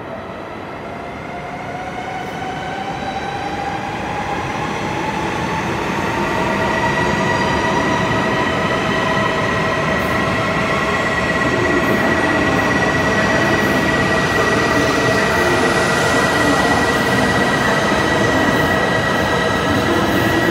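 E5 series Shinkansen train pulling away from the platform. Its motor whine rises in pitch and grows louder over the first six seconds or so as it gathers speed, then holds a steady high tone over the rolling rumble of the cars passing.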